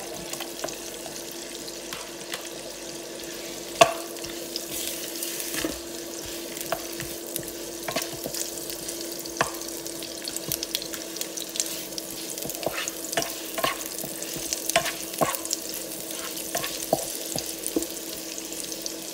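Onion and garlic sizzling in melted butter in a frying pan while a wooden spatula stirs them, with frequent light knocks and scrapes against the pan and a steady low hum underneath. A sharp knock stands out about four seconds in.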